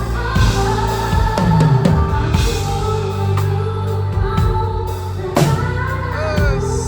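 Pop band playing with a singer, the drum kit up front: kick and snare keeping the beat under sustained bass and keys, with a cymbal crash about five and a half seconds in.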